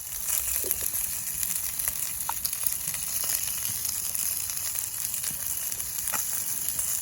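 Food frying: a steady sizzling hiss with scattered small crackles and pops.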